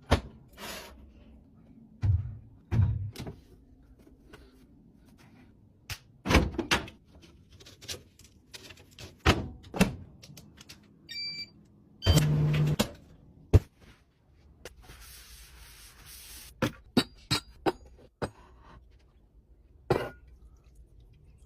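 Household handling sounds: a string of knocks, thuds and clicks as things are set down, opened and shut. There is a short electronic beep about halfway through, followed by a brief low hum, and a second or so of hiss a little later.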